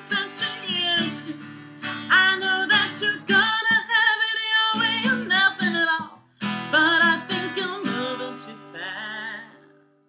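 A woman singing to her own strummed acoustic guitar, ending on a held note with vibrato that fades out near the end.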